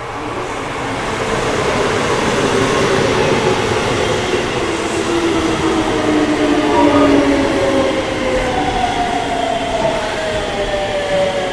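Keisei electric commuter train running into a station, getting louder over the first couple of seconds. Its traction motors whine in several tones that fall steadily in pitch as it slows, over the rumble of wheels on rail.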